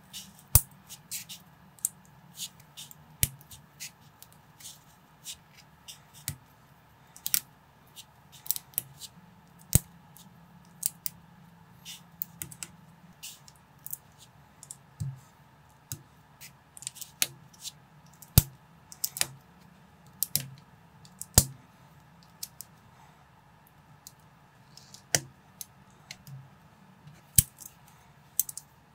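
Plastic LEGO-compatible bricks being pressed and snapped together by hand: sharp, irregular clicks, about one or two a second, over a faint steady low hum.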